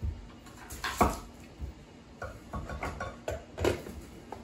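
Kitchen knives cutting and tapping on cutting boards, with utensil clatter: a run of irregular knocks and clicks, the sharpest about a second in and near the end.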